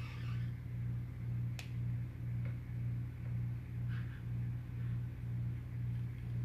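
A steady low mechanical hum that swells and fades evenly, about every 0.7 seconds. A few faint ticks come through as a thin stick stirs epoxy resin in a small cup.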